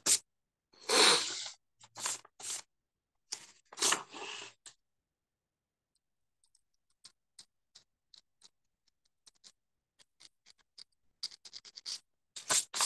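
Metal calligraphy nib scratching and scraping across paper in short pen strokes. Several louder strokes come in the first few seconds, then faint scattered ticks, and more strokes near the end.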